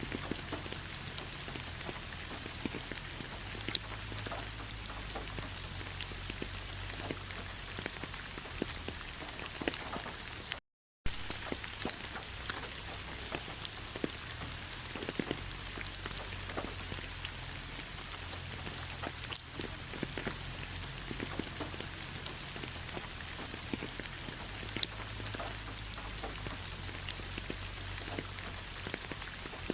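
Steady autumn rain falling on fallen leaves: an even patter with many separate drop taps on the leaves. The sound cuts out for a split second about a third of the way through.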